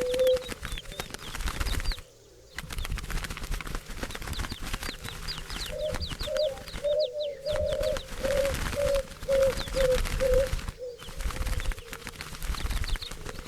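Turtle doves cooing in a run of short, low, repeated notes, about two a second, over quick high chirps from small birds and a rough wing-flutter noise. The sound drops out briefly three times.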